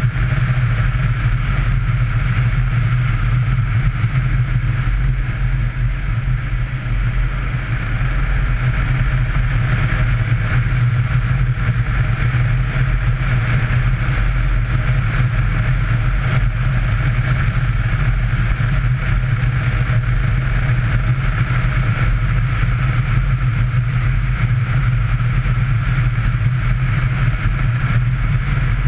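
Yamaha Ténéré motorcycle engine running at a steady cruise, a constant low drone with rushing wind noise over it.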